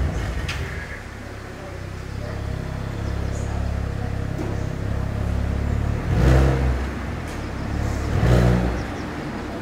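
2020 Audi RS4 Avant's twin-turbo 2.9-litre V6 idling steadily, then revved in two short throttle blips about six and eight seconds in, each rising and dropping back quickly to idle.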